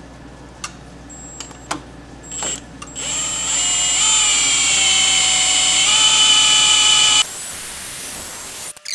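Cordless drill spinning a Ford FE V8's oil pump through a priming tool dropped into the distributor hole, to prime the oil system before first start. After a few light clicks, the drill whines for about four seconds, its pitch sagging slightly under load and then recovering. A rougher hiss follows, and everything cuts off just before the end.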